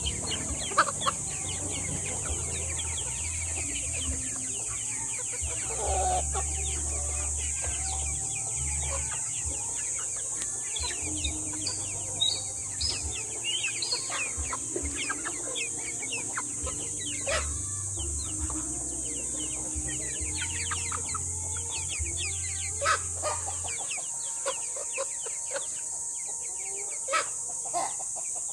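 A flock of silkie chickens clucking and chirping, many short calls overlapping.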